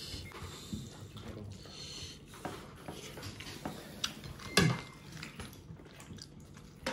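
Dishes and utensils clinking and clattering at a meal table, with one louder clatter about two-thirds of the way through.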